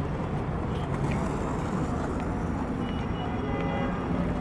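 Steady city street traffic noise: a continuous low rumble of cars and buses passing.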